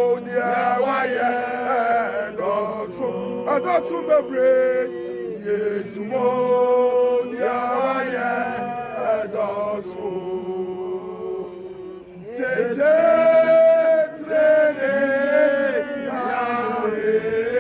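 Voices singing a hymn to a slow, chant-like melody, with long held notes. It softens about ten seconds in and swells again about two seconds later.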